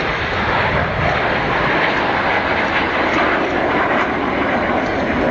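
BAE Hawk T1 jet trainers flying past low over the crowd: loud, steady jet noise.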